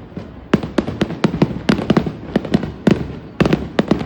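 Fireworks bursting overhead in a rapid, irregular volley of sharp bangs, several a second, each with a short echoing tail.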